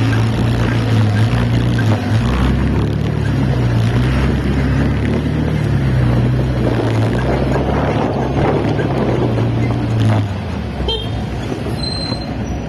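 Road traffic heard close behind a city bus: a steady engine drone with road and wind noise, easing off about ten seconds in, then a few short high beeps near the end.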